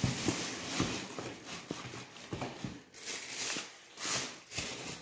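Rustling and handling noise with several light knocks, irregular and broken up, as a pair of shoes is handled and packed back into its shoebox.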